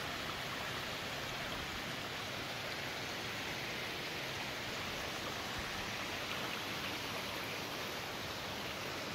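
Small rocky creek running, a steady even rush of water.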